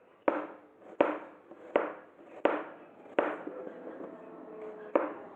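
Kitchen knife thinly slicing peeled garlic cloves on a cutting board: about six sharp taps of the blade on the board, a little under a second apart, with a longer pause before the last one.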